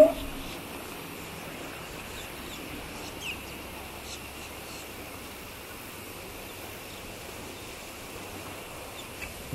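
Steady outdoor background noise with a faint high band and a few short, faint chirps.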